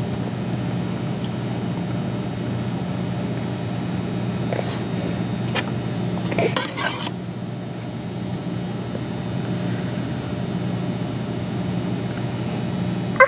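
Bench scraper working lace icing across a silicone lace mat on a metal baking sheet, giving a few light clicks and taps about halfway through and a sharp tap at the very end, over a steady low hum.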